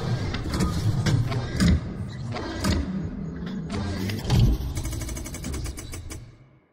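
Logo-intro sound effects: a car engine running and revving under a quick run of sharp mechanical clanks and hits, fading out near the end.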